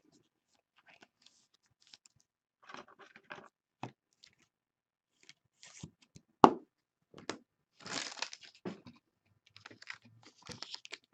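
Faint rustling and scraping of a trading card being slid into a clear plastic sleeve and handled, with a sharp click about six and a half seconds in and a longer rustle around eight seconds.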